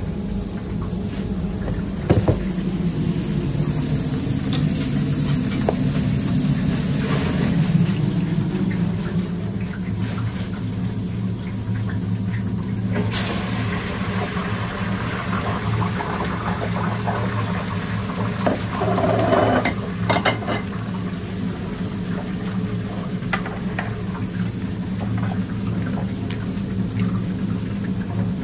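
Burgers sizzling on a grill over a steady low hum, with a few sharp knocks and clatters of utensils. The sizzle grows louder about halfway through.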